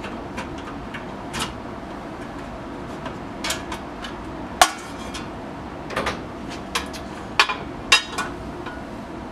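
Irregular sharp metallic clicks and clinks of small metal parts and a screwdriver being handled on a metal chop saw during a blade change, about a dozen taps with the loudest about halfway through.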